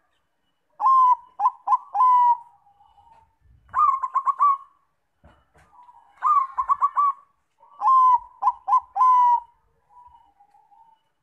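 Zebra dove (Bangkok perkutut) cooing: four short song phrases, each a longer opening coo followed by a quick run of short coos, with softer low notes in between.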